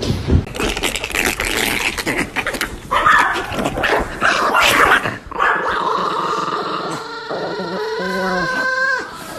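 A dog vocalizing: a few seconds of noisy scuffling and short yips, then a drawn-out, wavering whine through the last few seconds.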